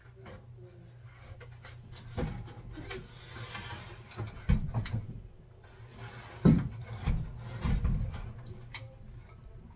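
Handling noise on top of a glass tank: a scraping rub about a third of the way in, then several knocks and clunks as objects are set down and moved, the loudest about halfway through and again about two thirds in.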